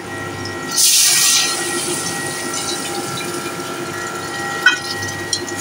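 Water poured from a bowl into a steel pot of hot oil and sugar: a loud splashing rush about a second in, then a steady hiss.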